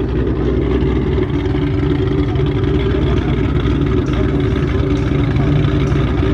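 Car engine held at high, steady revs during a burnout, loud and unbroken.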